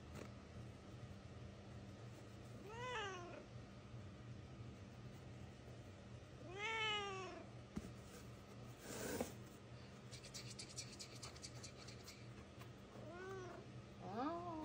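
Black cat meowing in short complaining calls, each rising then falling in pitch: one about three seconds in, a longer one near seven seconds, and two close together near the end. A short burst of noise comes about nine seconds in.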